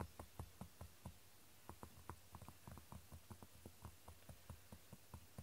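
A quick run of soft clicks or taps, about four a second, with a brief pause about a second and a half in.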